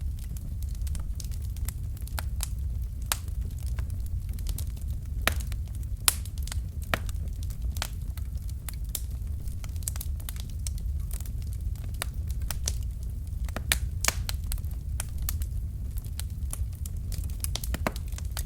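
Wood logs burning in a fireplace: a steady low rumble of the flames with frequent irregular sharp crackles and pops.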